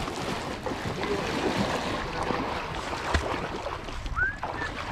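Water swishing and sloshing as a person wades through knee-deep pond water in waders, steady throughout, with one sharp knock about three seconds in and a brief high chirp near the end.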